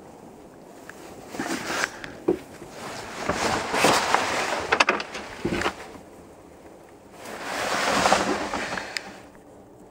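Rustling of a grey canvas boat cover being handled, in loud bursts with a few light knocks, then a longer swell of rushing noise that rises and falls away near the end.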